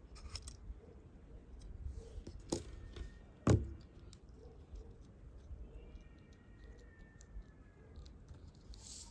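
Small clicks and taps of handling a smartphone's small parts, with two sharper clicks about two and a half and three and a half seconds in, the second the loudest.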